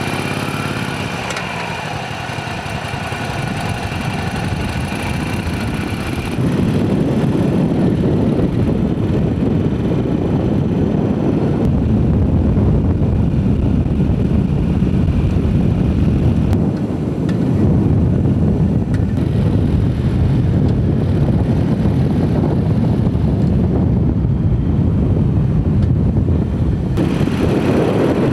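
Motorcycle engine rising in pitch as the bike pulls away, then running steadily. From about six seconds in, a louder rush of wind on the microphone largely covers the engine as the bike rides along.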